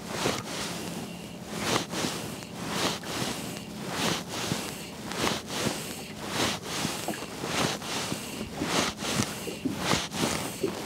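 Small waves slapping and lapping against the hull of a drifting fishing boat in a stiff breeze, in irregular slaps about once or twice a second over a steady wash of wind.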